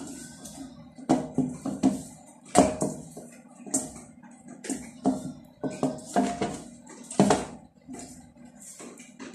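Irregular knocks and wet slaps as hands turn and rub a boiled pork leg in a stainless steel bowl, working in a soy sauce and black pepper marinade.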